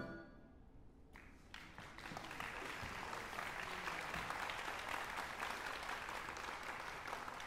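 A large wind band's final chord cuts off. After about a second of quiet, audience applause breaks out and settles into steady clapping.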